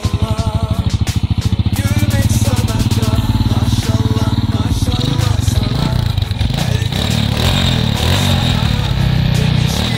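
Honda XRM 125 single-cylinder four-stroke engine, fitted with a 57 mm big-bore setup, running with a plain pulsing beat. From about halfway in it is held at higher revs and the beat blurs into a steadier sound.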